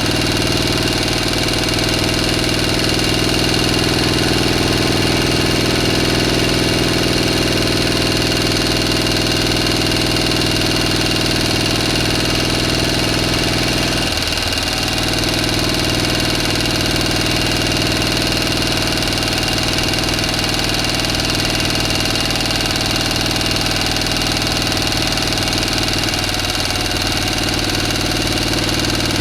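A motor running steadily, with a hum of several steady tones and a thin high whine above it. Its low note wavers briefly about halfway through and again near the end.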